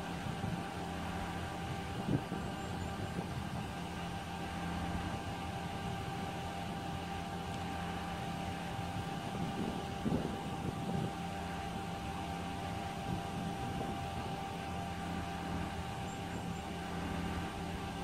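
Concrete pump truck running steadily while pumping concrete through its boom, a constant engine drone with a steady hum. A couple of louder knocks come about two seconds in and again about ten seconds in.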